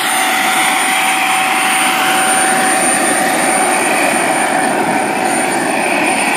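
Kingtech K-80 model jet turbine of an RC jet running steadily: a constant rushing noise with a steady high-pitched whine on top.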